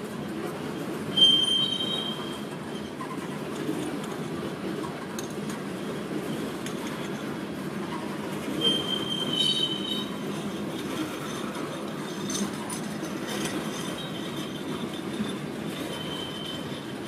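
Loaded coal-train hopper cars rolling past with a steady rumble of wheels on rail. Brief, high-pitched wheel squeals come about a second in (the loudest moment), again around nine to ten seconds in, and near the end.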